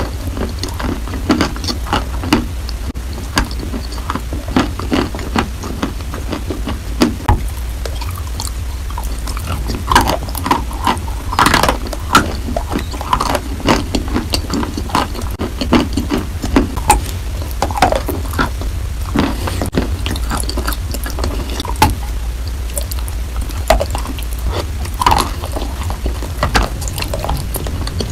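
Close-miked biting and chewing of a chunk of chalk coated in wet chalk paste: wet mouth and lip sounds with irregular sharp crackles and clicks. A steady low hum runs underneath.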